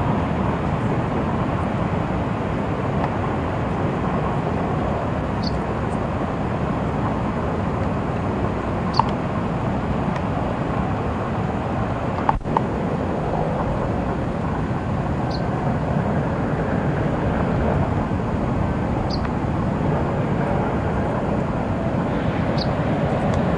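Steady rushing background noise, with a short high-pitched bird note repeating about every three to four seconds, from a small bird in the reeds.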